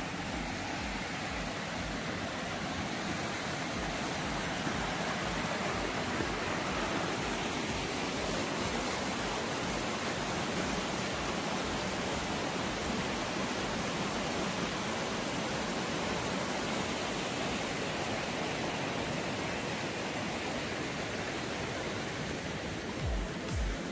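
Rushing mountain creek: whitewater tumbling over rocks and fallen logs in a steady, unbroken rush.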